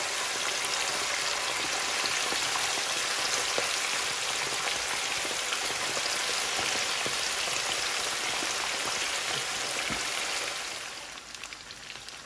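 Seasoned raw chicken thigh pieces, just put into hot oil, deep-frying in a pan with a steady, dense sizzle. About ten and a half seconds in, the sizzle drops to a quieter, crackling bubble.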